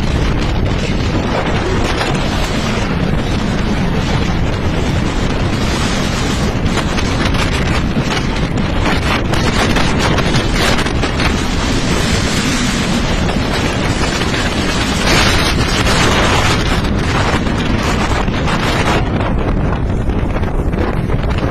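Strong wind buffeting the microphone: a loud, steady rushing noise with irregular gusts and rumble.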